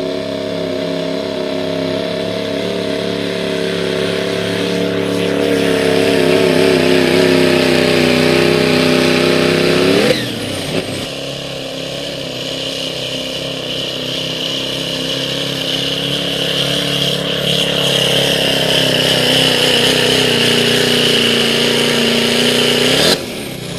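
Turbocharged diesel pickup engines at full throttle pulling a weight-transfer sled, a loud steady drone whose pitch creeps upward, with a high whistle over it in the second run. Two runs are joined by a cut about ten seconds in, and each ends with the engine note sweeping sharply up just before it breaks off.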